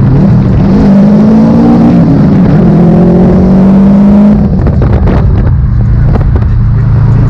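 Car engine pulling hard under acceleration, its pitch climbing, then about four seconds in it drops to a lower, steadier note as the engine carries on.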